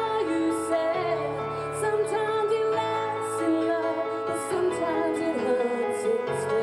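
Live singing over an instrumental backing track: a solo voice sings a slow melody with held, wavering notes over sustained chords and a bass line that changes a few times.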